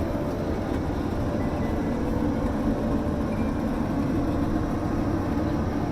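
Steady rumble of an Airbus A330-300's jet engines and airflow heard inside the passenger cabin.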